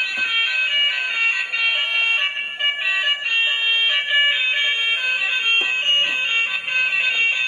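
A high-pitched electronic tune of beeping notes, stepping quickly from pitch to pitch without a break.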